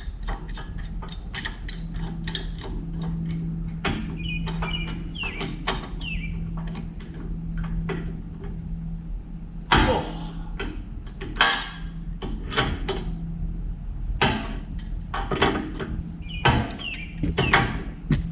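Irregular metal knocks, clanks and short scrapes of hand work on car lift parts, with several louder bangs in the second half, over a steady low hum.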